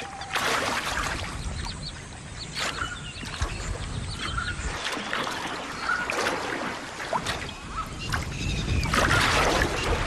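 Mugger crocodiles splashing and churning the shallow water as they snap at fish, in irregular splashes that are loudest near the end. Short bird calls sound over the splashing.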